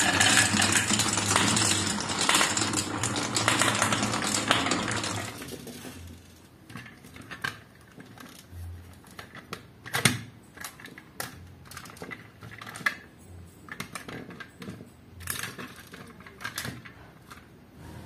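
Glass marbles rolling and rattling around the wooden bowl of a marble run, a dense continuous clatter that dies away after about five seconds. Then scattered clicks and knocks as a toy dump truck is handled and set in place, with one sharper knock about halfway through.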